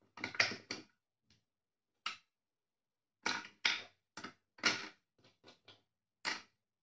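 Hard plastic clicking and clattering in short irregular bursts as small black attachments are pulled from and pressed into a plastic holder.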